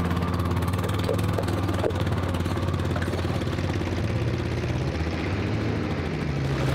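Yamaha side-by-side UTV's engine running steadily as it drives away.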